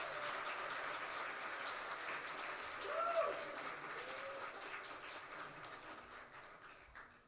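Audience applauding, with a short cheer from a voice about three seconds in. The applause dies away near the end.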